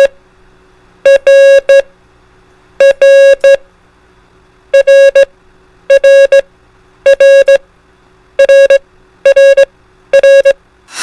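Morse code beep tone, about 550 Hz, keying the letter R (di-dah-dit, 'Roger': all received and understood) eight times over, the groups coming faster toward the end, over a faint background music bed. A sharp click near the end.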